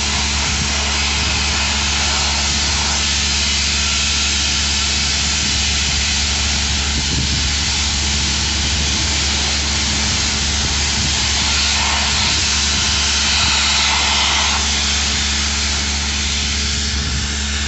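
Machinery of a sludge-cleaning robot running steadily: a constant low hum under a loud hiss, the hiss swelling for a few seconds past the middle.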